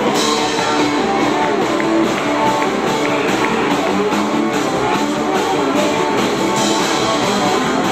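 Electric guitar played live with a band in a rock-and-roll style, the notes running continuously at a steady volume.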